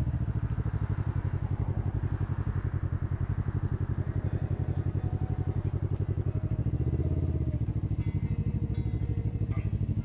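Motorcycle engine running at low revs with a steady, even pulsing while the bike rolls slowly.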